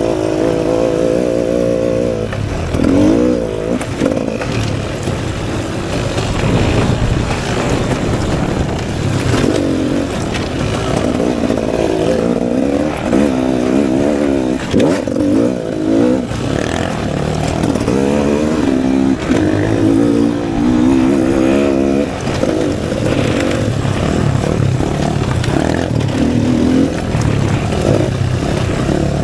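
Dirt bike engine being ridden hard on a trail, its pitch rising and falling again and again with the throttle.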